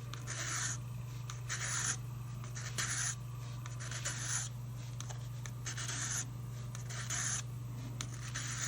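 Hand file rasping in short strokes, roughly one a second, on the ebonite bit of a pipe stem whose button is being shaped to even it up. A steady low hum runs underneath.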